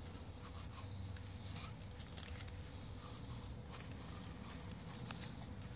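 Faint handling sounds of a rag wiping old grease out of a propeller hub: scattered light rubs and clicks over a low background hum, with a short high chirp about a second in.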